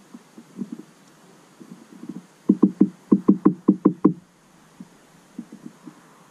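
A small finch pecking seed at a plastic tube feeder: a quick run of about nine dull knocks in under two seconds, with scattered softer taps before and after.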